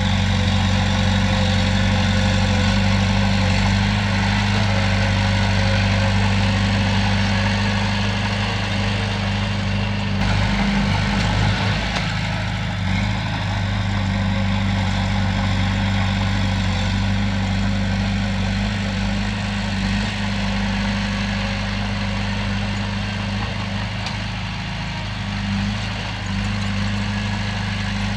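Komatsu bulldozer's heavy diesel engine running steadily at an even speed.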